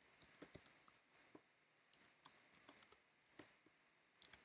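Faint typing on a computer keyboard: an irregular run of soft key clicks.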